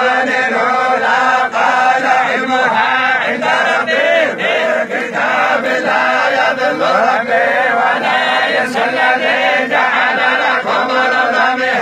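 A group of men reciting the Quran together in unison, a continuous chanted recitation of many voices.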